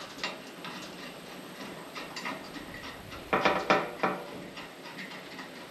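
Small metallic clicks and clinks of a bolt and washers being fitted by hand, with a short cluster of louder knocks about three and a half seconds in.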